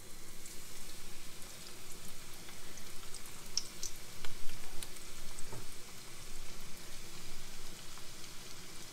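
Panko-crumbed squid pieces frying in hot oil in a wok: a steady sizzle with scattered small pops and crackles.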